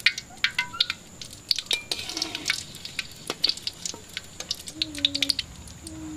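Cassava patties frying in shallow oil in a wok, the oil crackling and popping irregularly as each patty is laid in.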